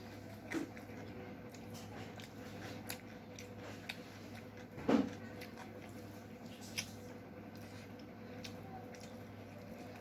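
Close-up eating sounds of chicken curry and rice: soft wet squishing and chewing with scattered small clicks, the loudest about half a second in and again near the middle, over a faint steady hum.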